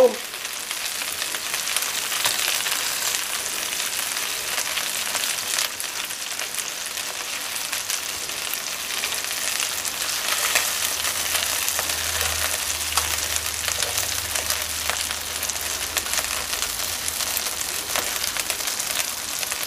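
Marinated chicken wings sizzling steadily in a frying pan, with scattered small crackles.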